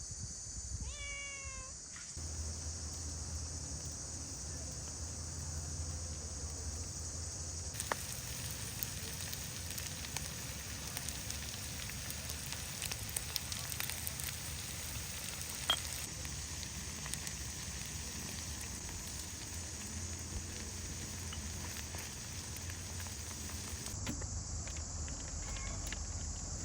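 A cat meows once, a single falling call, about a second in. After it there is only a steady background hiss and hum with a few faint clicks.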